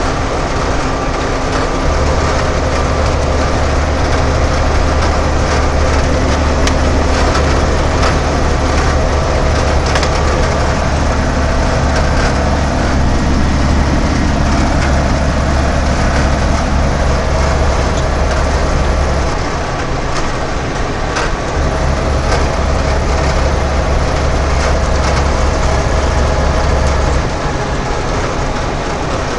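Cab noise of a semi truck cruising at highway speed: a deep, steady diesel engine drone under road and tyre noise, with small rattles in the cab. The drone eases off briefly about two-thirds of the way through and again near the end.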